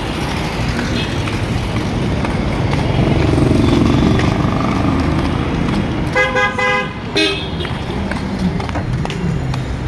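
City street traffic: the steady noise of car engines and tyres, swelling as a vehicle passes close about three seconds in. A car horn honks once for about a second, about six seconds in.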